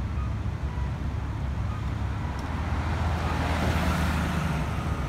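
City street traffic: a steady low engine rumble, swelling as a vehicle passes close about three to four seconds in.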